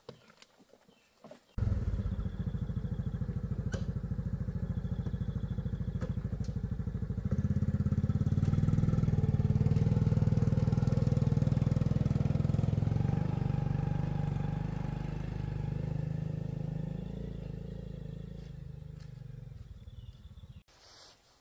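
A small step-through motorcycle's single-cylinder engine starts abruptly about a second and a half in and runs with a steady putter. It grows louder as the bike pulls away, then fades steadily as it rides off.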